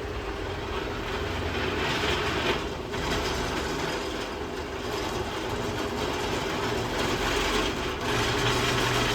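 A 2006 Craftsman T-rail garage door opener running steadily as it lifts the door, with a motor hum and the rattle of the door and rail. It is fairly quiet but a little noisy.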